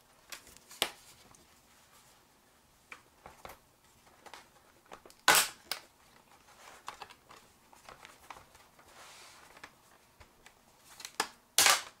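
Plastic snap clips of a laptop's base cover clicking free as the cover is prised off by hand: scattered clicks, the two loudest about five seconds in and near the end.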